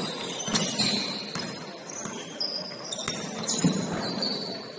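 Basketball game in a gym: a ball bouncing on the hardwood court at irregular intervals, with short high squeaks of sneakers on the floor and faint voices in the background.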